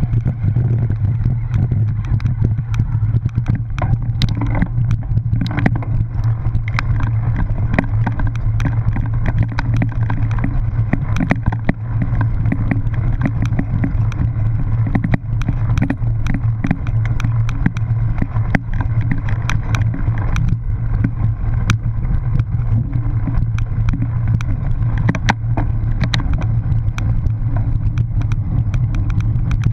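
Cyclocross bike ridden over bumpy grass, heard from a camera on the bike: wind on the microphone makes a steady low rumble, with frequent clicks and rattles as the bike jolts over the rough ground.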